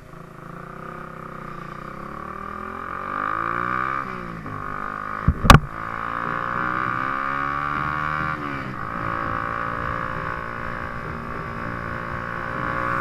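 Hi Speed Infinity 150cc single-cylinder motorcycle engine pulling under way, its pitch climbing through a gear, then falling at a shift and climbing again. A single loud sharp knock comes about five and a half seconds in.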